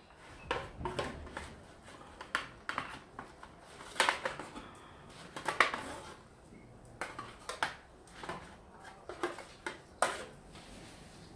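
Metal kitchen tongs clacking and scraping against a disposable aluminium foil loaf tray as a meatloaf is turned in it: irregular clicks and scrapes, with louder clacks about four, five and a half and ten seconds in.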